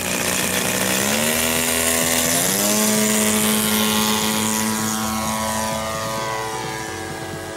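A radio-controlled Extra 330 aerobatic plane's DLE 60cc twin-cylinder petrol engine throttling up on the takeoff run. Its pitch rises in two steps over the first three seconds, then holds steady at high power and grows a little fainter near the end as the plane climbs away.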